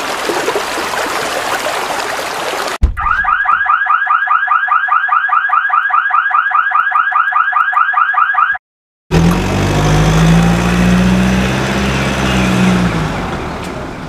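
A rushing noise, then an electronic car-alarm-style warble pulsing about six times a second for nearly six seconds. It cuts off, and after a short gap a vehicle engine sound runs, rising slightly and then fading out near the end.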